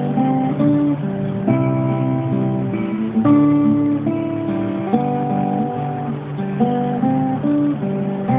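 Acoustic guitar fingerpicked: plucked bass notes and a melody ringing together over arpeggiated chords, with a couple of sharper plucks about three and five seconds in.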